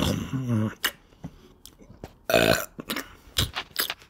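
A man burps once, short and loud, about two seconds in. Near the start there is a brief voiced hum with his mouth full, and a few light clicks of knife and fork on a plate come near the end.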